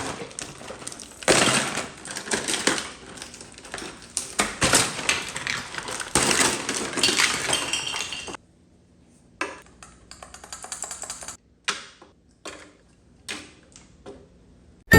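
Hard plastic toy pieces clattering and knocking together as they are handled, a dense jumble of clicks and rattles for about eight seconds. It then stops suddenly, leaving only a few scattered taps.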